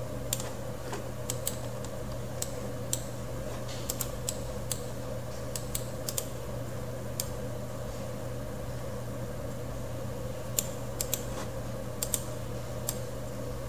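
Irregular light clicks from a computer mouse and keyboard, some coming in quick pairs, over a steady low hum.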